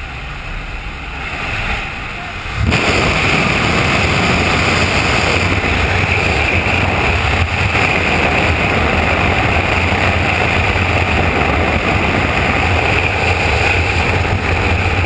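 Engine and propeller drone of a small high-wing jump plane mixed with slipstream wind rushing past the open door. The noise steps up suddenly and gets much louder about two and a half seconds in, as the skydiver moves out into the airflow, then holds steady.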